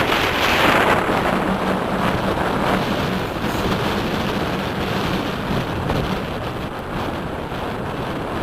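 Wind buffeting the microphone as a steady rush of air, loudest in the first second.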